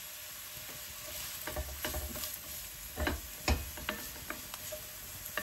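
Chopped onions sautéing in olive oil in a hot enamelled pan, a steady sizzle. From about a second and a half in, a wooden spatula stirs them, with irregular scrapes and knocks against the pan.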